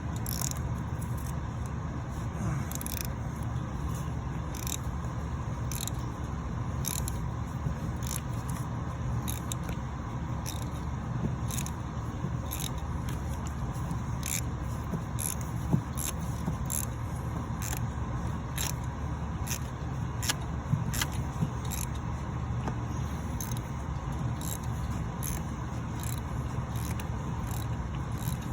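Scraping and irregular sharp clicks of a ratchet and socket being worked on the oil pressure sending unit behind the engine, over a steady low rumble.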